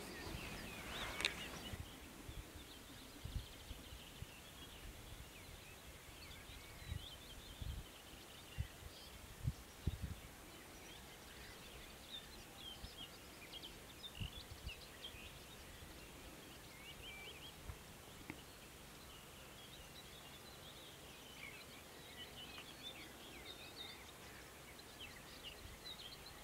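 Faint open-field ambience with small birds chirping and singing in the distance: many short, high chirps throughout and a louder call about a second in. A few brief low thumps come in the first ten seconds.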